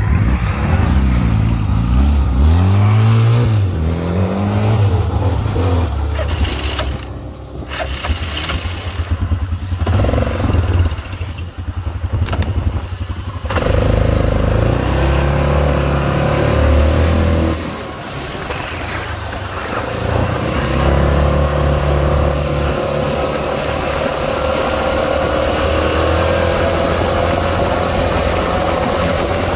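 ATV engine revving up and down several times, then running more steadily with a constant note, dipping once and picking up again.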